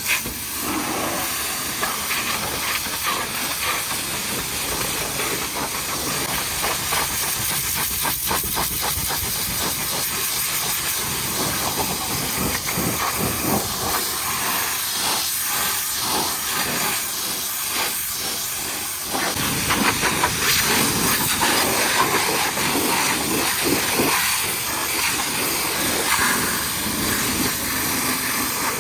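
High-pressure washer lance blasting water onto a truck's bodywork, a steady spray that gets louder about two-thirds of the way through.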